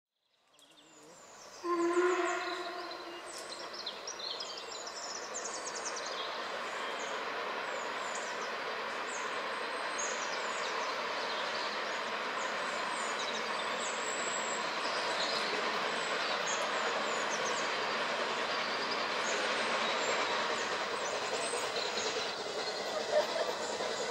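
Two steam locomotives running side by side under load, a steady rush of exhaust and running noise, opened by a short whistle blast about two seconds in. Near the end their exhaust beats become audible as a rhythmic chuff as they draw closer, with birds chirping above.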